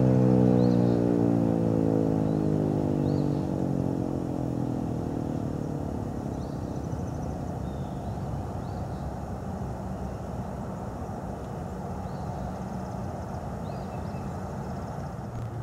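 Federal Signal 2001-130 rotating electromechanical siren winding down at the end of its attack signal: its tone slides down in pitch and fades away over the first several seconds. A steady low rumble and a few faint high chirps remain.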